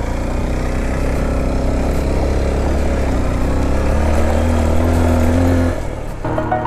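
Honda XR150L single-cylinder four-stroke motorcycle engine pulling under load up a steep, rocky dirt climb. Its pitch rises steadily for a couple of seconds, then drops off near the end as the throttle eases, and music comes in just after.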